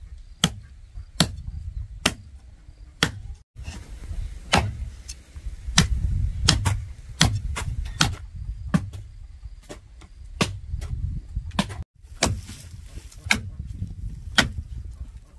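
A machete chopping into a tree root in the ground: a run of sharp, separate strikes at an uneven pace of about one a second.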